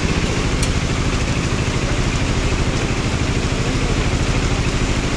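A motorcycle engine idling close by with a steady, even pulsing beat, over the constant hiss of heavy rain falling on flooded road.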